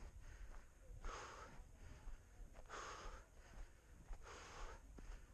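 A racer's breathing close to the microphone, hard and rhythmic from exertion, one breath about every one and a half seconds, over a low rumble.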